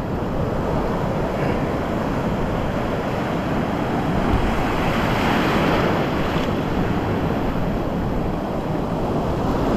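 Strong ocean surf: waves washing and breaking close by, with wind rumbling on the microphone. The surf swells louder about five seconds in.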